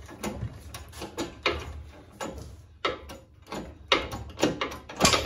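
Metal clicks and clunks from working a hydraulic shop press and handling a two-stroke crankshaft's pin and web under its ram, just after the crank pin has been pressed out. The sharpest knocks come near the end.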